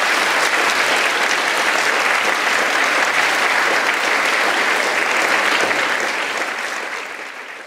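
A large audience clapping steadily, fading out near the end.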